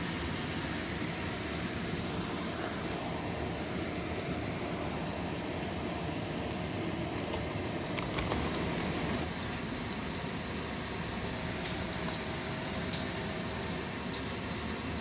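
Steady sizzling of food frying in hot fat, with a sharp click about eight seconds in.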